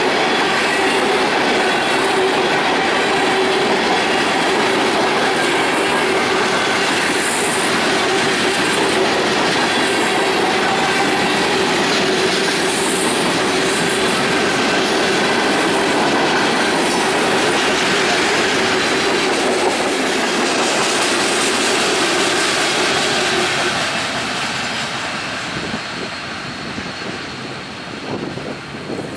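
Freight cars rolling past at close range: steady wheel and rail clatter with a held squeal from the wheels. It fades over the last five seconds as the end of the train goes by.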